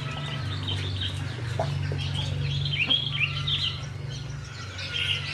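Birds calling with many short chirping and clucking notes, loudest about three seconds in, over a steady low hum.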